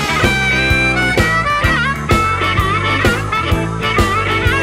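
Blues music instrumental break: a harmonica playing a solo with bent, wavering notes over a band with a steady beat.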